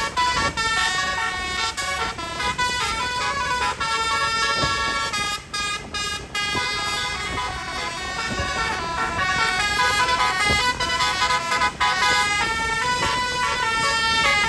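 Bus 'telolet' musical air horn, a set of electrically switched horn trumpets, playing a quick melody of stepped notes with several pitches sounding together.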